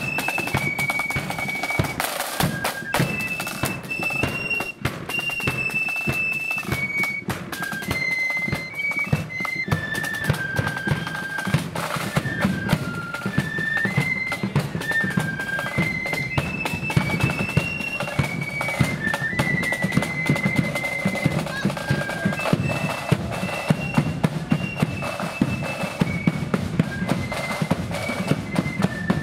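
Marching flute band playing a tune: flutes carry a single melody line over a steady beat of side drums and bass drum.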